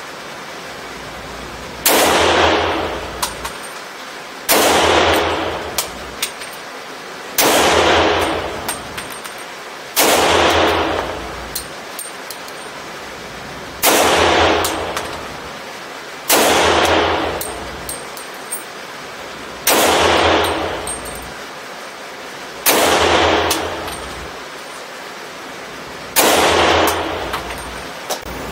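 A .357 SIG Sig Sauer P229 Legion pistol with a custom compensator and BarSto barrel fired nine times in slow single shots, about every two and a half to four seconds. Each sharp report rings off in a long echo through the indoor range.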